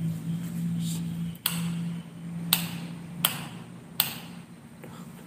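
Plastic wall light switch clicked four times, flicked on and off, with no power behind it: the house's electricity is dead.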